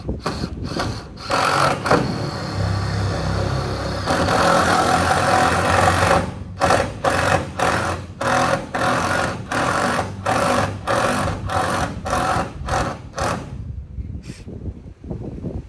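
Power drill driving roofing screws into roofing sheet: a run of several seconds, then short trigger pulses about two a second, stopping about 13 seconds in.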